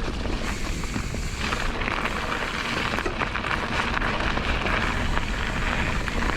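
Mountain bike riding a wet, muddy trail: a steady rush of wind on the microphone and tyre noise, with many small knocks and rattles from the bike over the ground.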